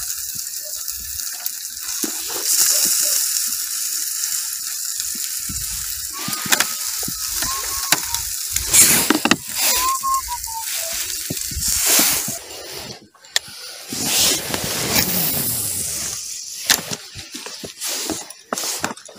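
Sausages sizzling on a small disposable charcoal grill: a steady hiss, broken by scattered clicks and knocks.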